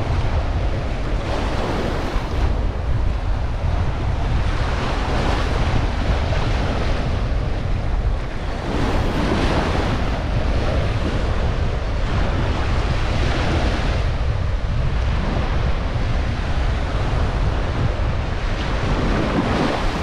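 Ocean surf washing onto a sandy beach, the waves swelling and fading every few seconds, with steady wind buffeting the microphone.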